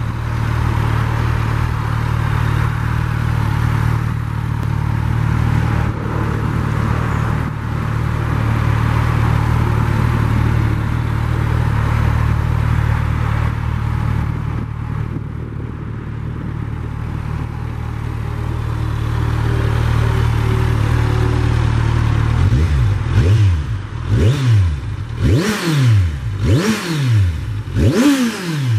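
2018 Kawasaki Ninja 1000's inline-four engine idling steadily through its stock exhaust. In the last several seconds the throttle is blipped about five times in quick succession, each rev rising and dropping back to idle.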